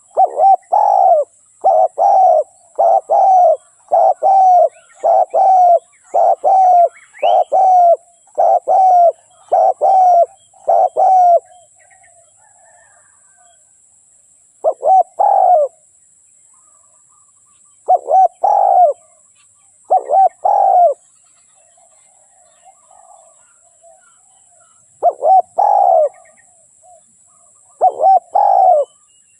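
Spotted dove cooing: a fast run of coos about two a second, then breaking into single and paired coos a few seconds apart.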